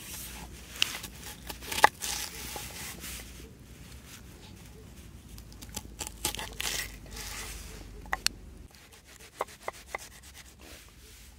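Knife slicing a red onion on a wooden cutting board: scraping, rubbing cuts with sharp knocks of the blade on the board, several of them close together near the end.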